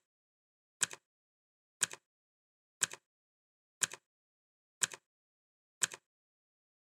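Clock ticking sound effect for a countdown timer: one tick every second, each a sharp click followed at once by a softer second click, with silence between ticks.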